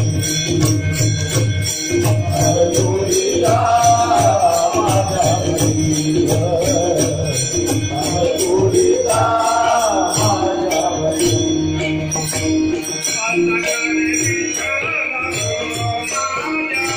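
A Marathi abhang sung by a bhajan group: voices singing a wavering devotional melody over a steady drum beat and continuous jingling metal percussion.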